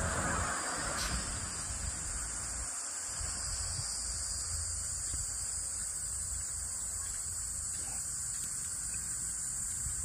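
Steady high-pitched insect chorus, with a low rumble underneath.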